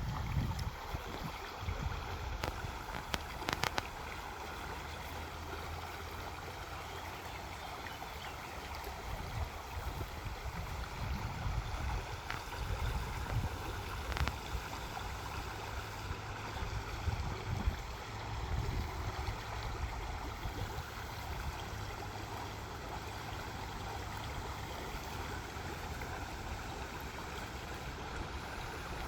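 Waterfall running with a steady rush of water.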